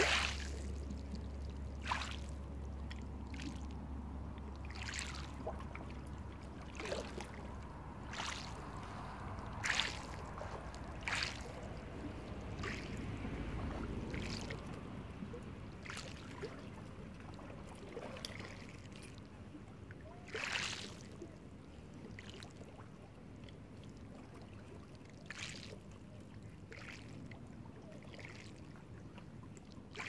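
Small waves lapping on a pebble shore, with irregular splashes and clicks of water washing over the stones; the biggest splashes come at the very start, about ten seconds in and about twenty seconds in. A low rumble underneath fades out about halfway through.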